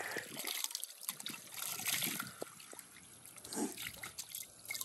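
Water pouring and splashing in small irregular spatters as someone rinses a face mask off their face with handfuls of water.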